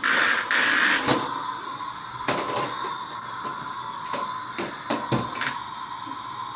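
Small vacuum cleaner running with a steady high whine, with a burst of hissing in the first second and scattered light knocks as it is pushed and bumped about.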